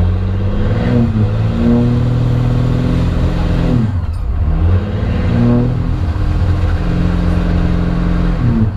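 Diesel pickup engine with a straight exhaust stack, heard loud from inside the cab as the truck accelerates hard. The pitch climbs for about four seconds, drops sharply as it shifts, climbs again, then holds steady before falling off near the end.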